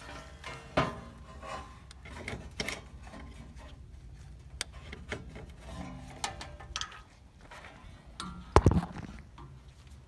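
Handling noise: irregular rubbing, scraping and light knocks as a camera and test-light leads are moved around under a welder. There is one loud thud near the end as the camera is set down on a wooden plank.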